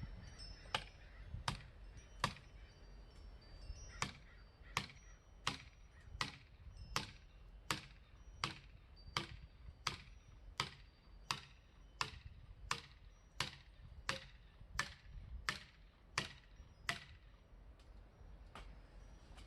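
Axe blows on wood, a steady run of sharp strikes about every 0.7 s that stop near the end.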